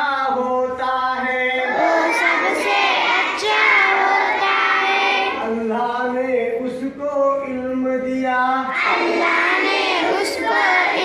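A group of schoolchildren singing an Urdu action song together, with several long held notes.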